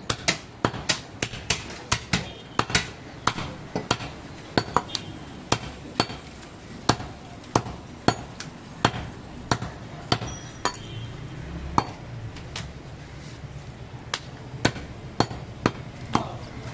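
Large butcher's cleaver chopping goat meat on a round wooden log block: a quick run of sharp chops, about two a second. There is a pause of about two seconds a little past the middle before the chopping resumes.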